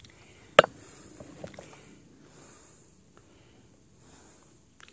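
A hiker breathing hard while climbing, with a breath about every second and a half. There is one sharp click about half a second in.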